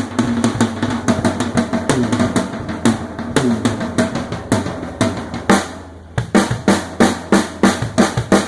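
An acoustic PDP Platinum drum kit with a Pork Pie snare, played loosely with dense strikes in quick succession. The playing eases off briefly about six seconds in, then picks up again with fast hits.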